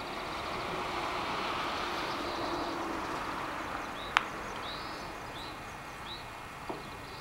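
A passing vehicle's noise swells over the first couple of seconds and fades away, with small birds chirping and one sharp click about four seconds in.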